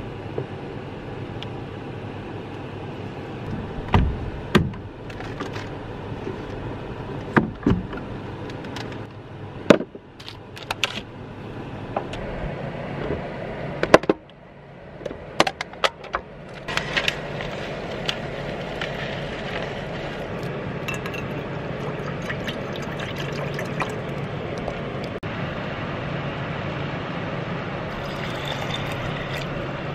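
Items clunking as they are handled and set down, then water poured from a bottle into a rice cooker's inner pot onto uncooked rice near the end, over a steady low hum.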